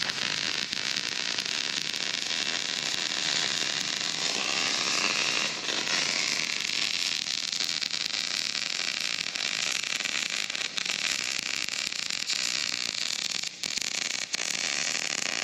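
Electric arc welding on steel brackets: a steady, dense crackle and hiss from the arc, with two brief breaks near the end as the weld stops and restarts.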